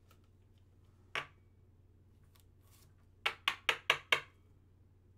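A clear plastic card holder being handled: one sharp click about a second in, then a quick run of about six sharp taps within a second.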